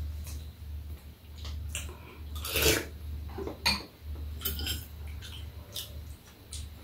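Metal spoons clinking and scraping against ceramic soup bowls during a meal: scattered short clinks, the loudest about two and a half seconds in, over a low steady hum.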